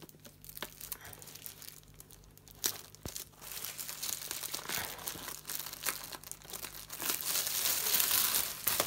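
Packaging being torn and crumpled open on a fireworks selection box: irregular crinkling and tearing with small clicks, building to its loudest near the end.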